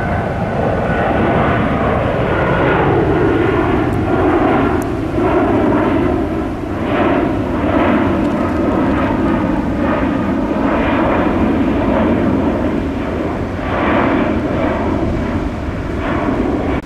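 Airbus A340-600's four Rolls-Royce Trent 500 turbofans at departure climb power, a loud steady jet roar. Its higher part swells and fades about once a second.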